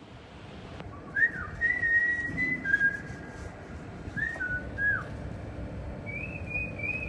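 A person whistling three short phrases, each opening with an upward swoop into a held note, the last phrase a little higher than the others.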